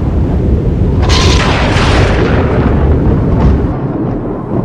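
Thunder: a deep, continuous rumble, with a sharp thunderclap about a second in that fades out over the next couple of seconds.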